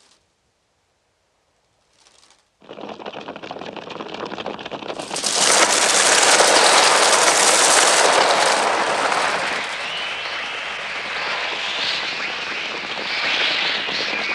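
A sudden dense rush of massed crows' wings beating. It breaks out about two and a half seconds in and swells to a loud, continuous fluttering din, with high shrieking cries over it in the last few seconds.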